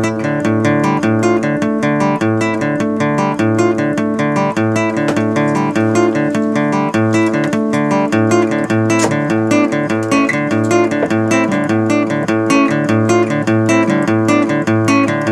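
Background music: a strummed acoustic guitar playing with a steady rhythm.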